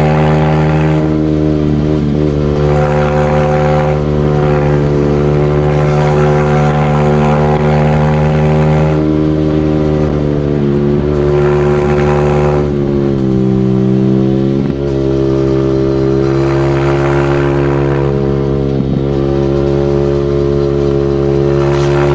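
Single-cylinder motorcycle engine running hard at a steady, held pitch. About two-thirds of the way through, the revs drop briefly and then climb back to the same steady note.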